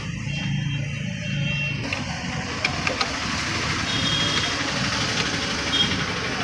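Motor vehicle engines running steadily, with a few light clicks a little before the middle.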